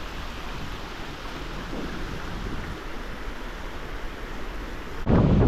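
Steady rush of creek water flowing through a slot canyon, with a sudden louder low rumble near the end.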